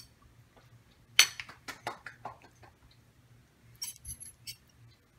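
Metal cutlery clinking and tapping against ceramic dishes while pot pie is spooned from a casserole dish into a bowl. There is a run of clinks starting about a second in and a shorter run near the end.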